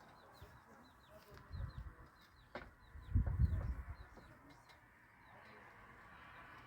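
Small birds chirping over and over, short high notes that slide downward, a few each second. Low rumbling thuds come in about one and a half seconds in and again around three seconds in, the louder of the two, with a sharp click between them.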